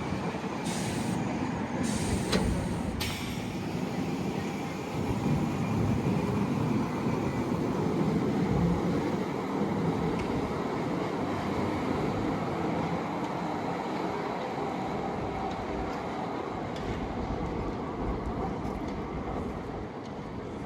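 Heritage tram running along its rails with a steady rumble, and a few short hisses in the first three seconds.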